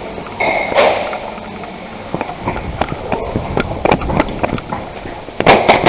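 Footsteps of a player moving quickly, a run of irregular short knocks, with a cluster of louder sharp cracks near the end.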